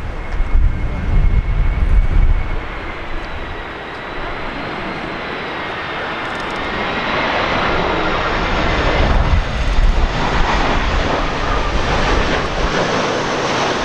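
Jet airliner flying past on its approach to land: a steady engine whine with high tones that drift slightly in pitch, and a rushing noise that builds from about halfway through. Gusts of wind buffet the microphone in the first couple of seconds.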